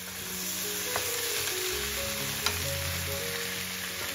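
Diced pumpkin and leeks sizzling in a hot stainless-steel frying pan with a splash of water, stirred with a wooden spoon that clicks against the pan twice. Soft background music plays underneath.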